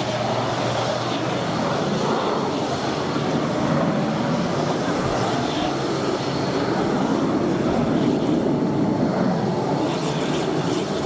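Twin Pratt & Whitney JT12 turbojets of a 1965 North American Sabreliner 40A at climb-out power after takeoff, a steady jet engine noise.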